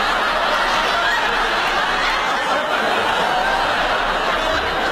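Studio audience laughing, a steady crowd laugh that holds through the whole moment.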